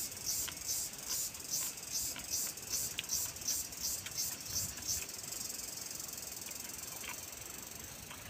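High-pitched insect chorus, pulsing about two to three times a second, then settling into a steady buzz about five seconds in. Faint clicks and smacks of eating with the hands and chewing come and go underneath.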